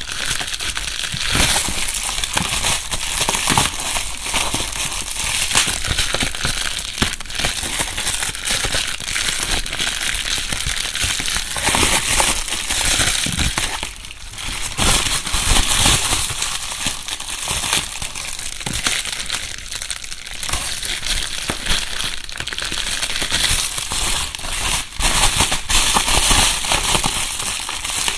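Bubble wrap being crumpled and rustled by hand, continuous crinkling dotted with many small sharp pops, recorded close up in binaural stereo. There is a brief lull about halfway through.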